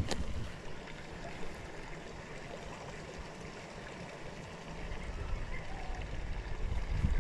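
Steady outdoor hiss with wind buffeting the microphone, in low rumbling gusts at the start and again building toward the end, and a single sharp click right at the start.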